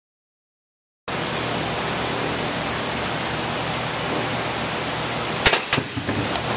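A cardboard shipping box for a four-bottle wine pack is released from a package drop tester and hits the floor near the end: a sharp thud, a quick bounce a moment later, then a few lighter knocks. A steady loud hiss with a thin high whine starts about a second in and runs under it.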